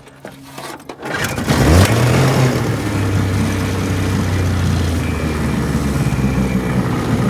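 1958 Elgin 12 hp two-stroke outboard motor opened up from idle about a second in, its pitch climbing quickly, then running steady at high speed under way.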